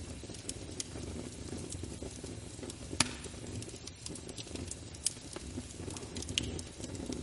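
Wood fire burning in a fireplace: a steady low rumble of flames with irregular crackles and pops, the sharpest pop about three seconds in.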